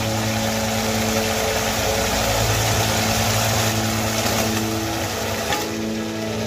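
Spice paste (masala) sizzling steadily in hot oil in a kadai, over a constant low hum. Near the end come a couple of soft knocks as fried potatoes and pointed gourd are tipped into the pan.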